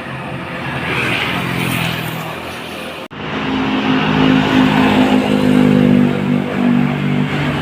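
Tour bus engine running, a noisy rumble that breaks off abruptly about three seconds in and resumes as a steady, low, even hum.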